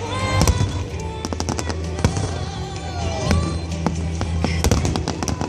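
Fireworks display: many sharp bangs and crackles in quick succession, over music with a steady low bass.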